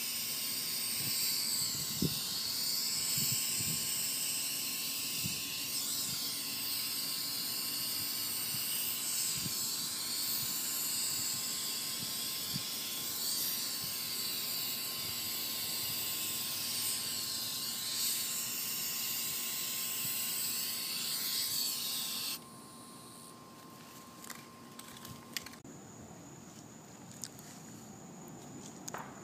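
Aerosol spray can of matte black fabric paint hissing in one long, unbroken spray, which cuts off suddenly about three quarters of the way through; a few faint clicks follow.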